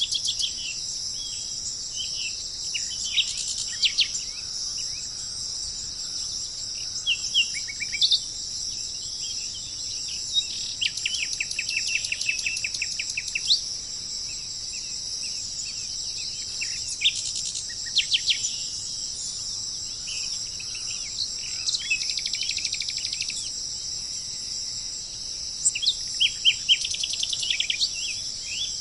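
Wild birds chirping and giving rapid trills of repeated notes over a steady, high-pitched insect chorus.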